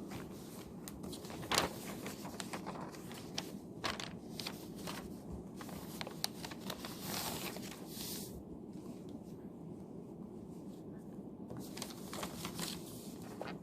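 Paper and desk handling while studying: rustling paper and light clicks and taps, with a sharper knock about one and a half seconds in, over a steady low room hiss.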